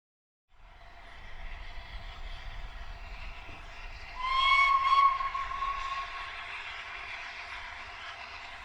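60163 Tornado, a Peppercorn A1 Pacific steam locomotive, sounding its whistle once, a single steady note lasting about two seconds and loudest at the start, over a steady hiss of steam.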